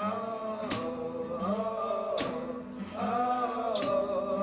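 Intro music with singing and a regular beat of sharp hits.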